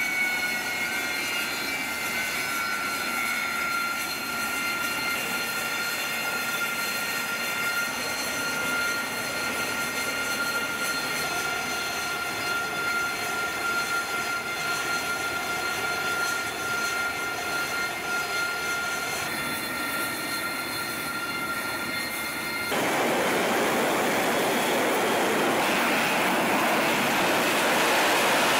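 Harrier jump jet's Rolls-Royce Pegasus turbofan running on deck with a steady high-pitched whine. About 23 seconds in the whine gives way abruptly to a louder, steady rushing jet noise.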